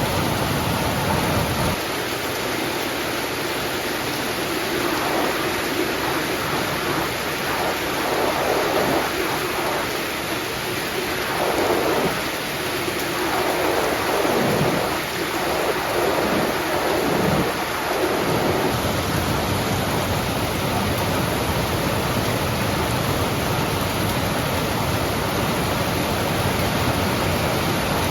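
Steady heavy rain, with a long rolling rumble of thunder that starts about two seconds in and dies away about two-thirds of the way through.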